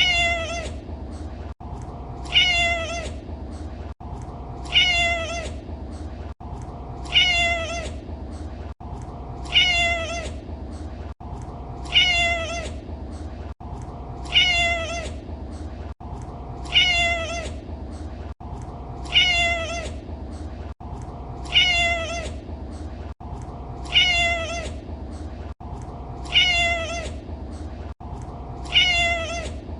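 Domestic cat meowing: the same short meow, falling in pitch, repeats identically about every two and a half seconds, about a dozen times, over a steady low hum.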